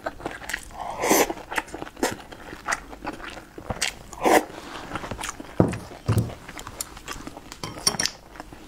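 A person chewing a mouthful of food close to a clip-on microphone, with irregular wet clicks and smacks of the mouth.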